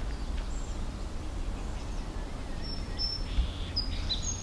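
Outdoor ambience: small birds chirping a few times in the second half over a steady low rumble.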